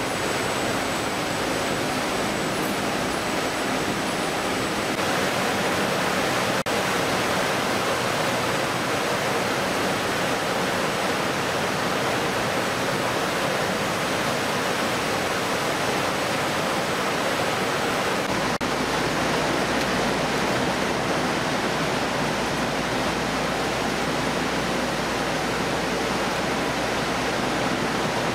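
Steady, loud noise of fish-processing machinery and running water on a factory ship's processing deck. A low hum joins in about 18 seconds in.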